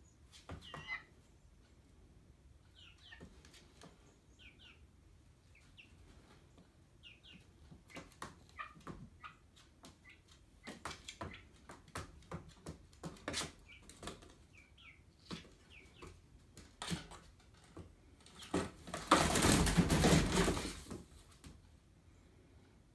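Silver Wyandotte chicken moving about in a cardboard maze: scattered taps and scratches of its feet on the cardboard, with a few short, high calls. Near the end comes about two seconds of wing flapping, the loudest sound.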